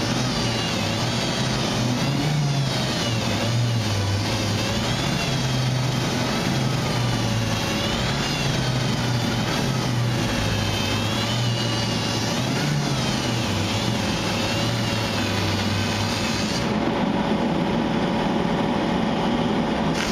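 Power sander running steadily on body filler and welded sheet metal. Its whine wavers up and down every second or two as it is worked over the panel.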